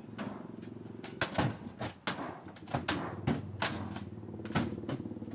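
Wooden boards and cabinet frames being wrenched apart and knocked about during a shack's demolition: about ten irregular knocks and clatters, over a steady low hum.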